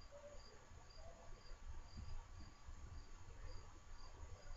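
Faint cricket chirping steadily, about two short high chirps a second.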